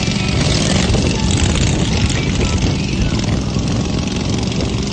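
Racing lawn mower engines running hard, several overlapping at once in a steady, loud drone.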